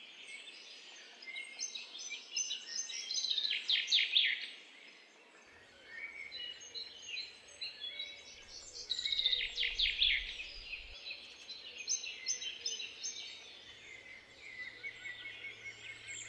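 Garden songbirds singing: scattered chirps and twitters, with two loud, rapid trilling phrases about four and ten seconds in.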